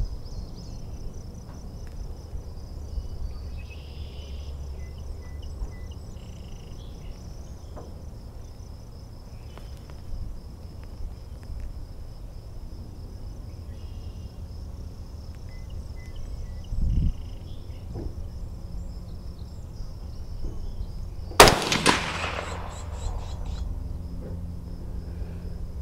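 A single shot from a Mossberg 640 KD bolt-action .22 Magnum rifle about three-quarters of the way in: one sharp crack with a short echo trailing off. Before it, a long wait with insects buzzing faintly and steadily.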